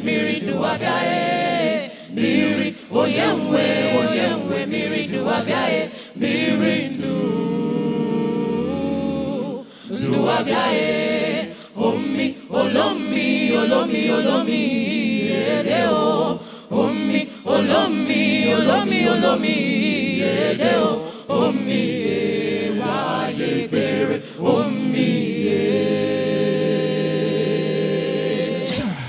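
Choir of women singing a gospel song about the water of life, its lead voices amplified through handheld microphones.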